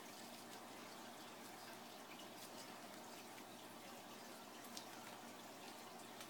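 Faint, steady trickle of aquarium water, with a few soft ticks as paper is twisted by hand.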